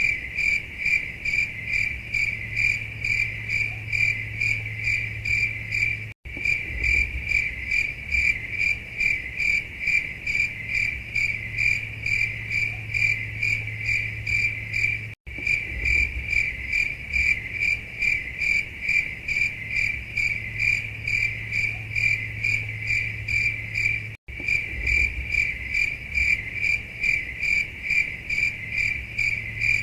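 Crickets chirping in a steady, even rhythm over a low hum, the stock 'awkward silence' crickets effect. The recording loops, cutting out for an instant about every nine seconds.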